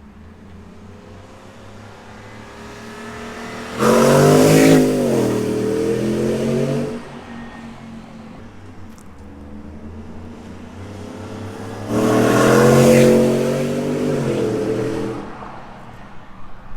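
Shelby Super Snake F150's 5.0 V8, breathing through long-tube headers and a Borla exhaust, at full throttle on two flybys about eight seconds apart. Each pass comes in suddenly loud, lasts about three seconds, and falls away as the truck goes by.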